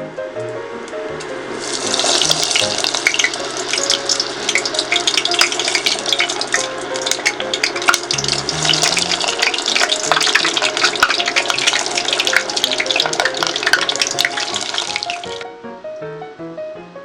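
Food deep-frying in hot oil in a small frying pot, a dense crackling sizzle that starts suddenly a couple of seconds in and cuts off near the end, over background music.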